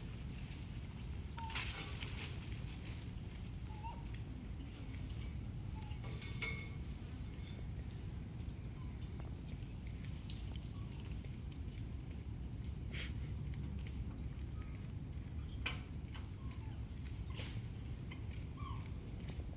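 Outdoor ambience: a steady high-pitched insect drone over a low rumble, with a few faint clicks and short chirps scattered through.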